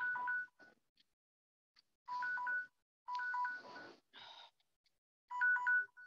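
Electronic telephone beeping: short bursts of two alternating steady pitches, about five times, heard through a video-call connection from an unmuted participant's line.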